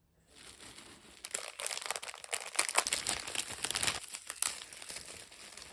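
Packaging crinkling and tearing under the hands: a dense crackle that builds over the first second or so, is loudest in the middle, then dies away near the end.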